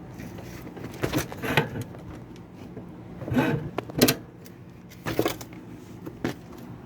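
Metal parts of a washing machine's drive knocking and scraping, about six separate clunks, as a stiff clutch assembly is twisted and worked free.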